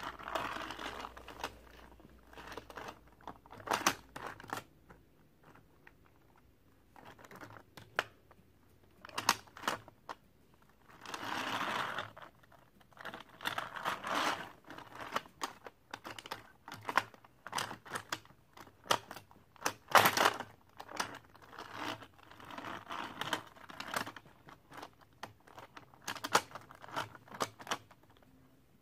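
Plastic and die-cast toy cars and a toy truck playset being handled and rummaged through: scattered clicks, clatters and rustling, with a longer rustle partway through.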